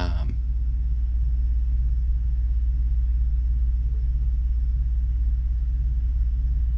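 Steady low rumbling hum from a running machine, with a deep even drone that holds unchanged throughout.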